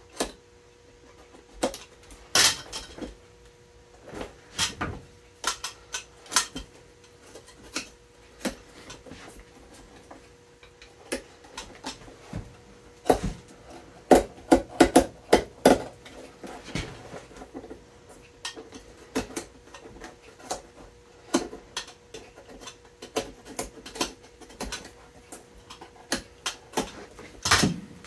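Cobbler's pliers clicking and snapping as a Goodyear welt is pulled off a boot: irregular sharp clicks, with a quick cluster of them about halfway through, over a faint steady hum.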